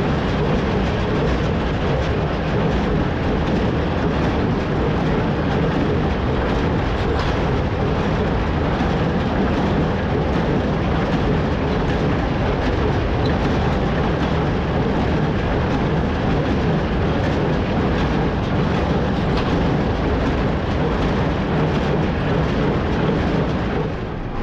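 Farm tractor running steadily while pulling a small square baler that is working through the hay, a loud constant mechanical din.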